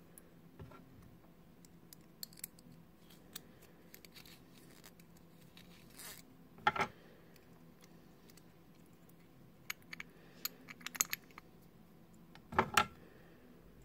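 Small metal clicks and scratches of a thin tool prying the retaining ring off a Vostok watch's case back, with scattered light ticks and a few louder clicks, the loudest about halfway through and again near the end.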